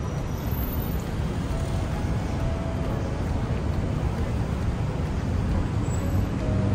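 Steady traffic rumble from a busy multi-lane city road.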